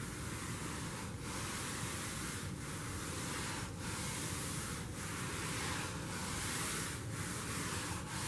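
Hand scrub brush rubbed back and forth across carpet pile: a steady scratchy rasp of bristles with a short break at each change of direction, about once a second. The brushing works powdered baking soda test dirt down into the carpet.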